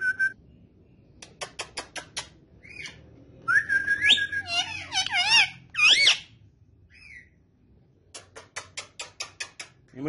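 Indian ringneck parakeet whistling and chattering: a held whistle that slides upward, then wavering warbles and a rising-falling call about six seconds in. Two quick runs of sharp clicks, about a second in and again near the end.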